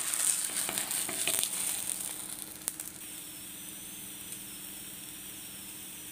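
Wheat-flour batter flatbread sizzling in desi ghee on a hot tawa, crackling at first and settling to a quieter, steady hiss about three seconds in.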